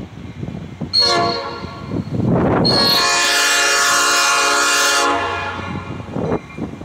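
Metra diesel locomotive's air horn sounding a short blast about a second in, then a long blast of about two and a half seconds, a chord of several notes. Underneath, the approaching train rumbles.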